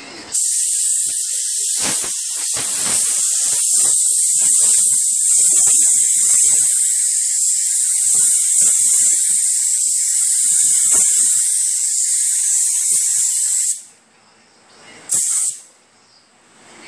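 Compressed-air paint spray gun hissing steadily as it lays a light first coat of high-build primer, for about thirteen seconds, then cutting off; one short burst follows a moment later.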